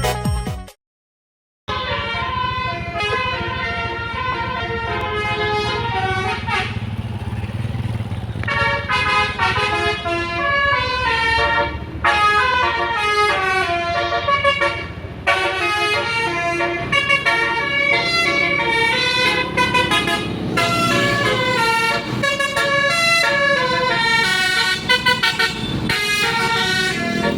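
Tour bus 'telolet' horn, a set of air horns playing quick stepped melodic tunes, over the low running of the bus engine. It starts after a brief silence about a second in and carries on with tune after tune.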